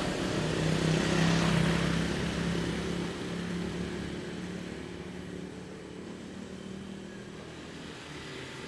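A road vehicle's engine going past, loudest about a second and a half in and then fading into a low traffic hum.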